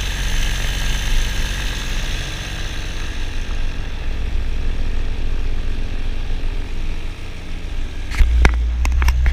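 Paramotor engine and propeller droning steadily in flight, heard from the pilot's harness. About eight seconds in, a low rumble and a run of sharp knocks from the camera being handled.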